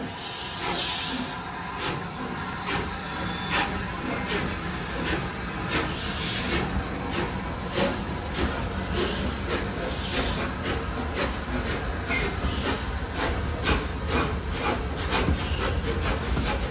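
Steam train getting under way: a steady rumble with regular beats that quicken from about one a second to several a second as the train gathers speed, with a hiss of steam.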